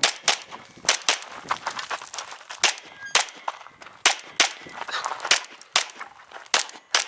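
A Canik Rival 9mm pistol firing a rapid string of about sixteen shots, two to three a second, in an action-pistol course of fire, with metallic clangs mixed in.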